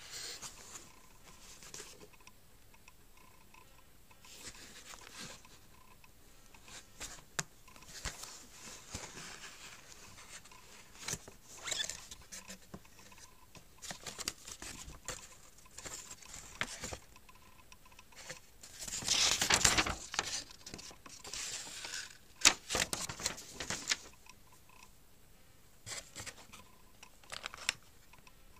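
Hands handling a cardboard box and its paper and cardboard inserts: scattered rustling, scraping and light taps, with the loudest stretch of rustling about two-thirds of the way through.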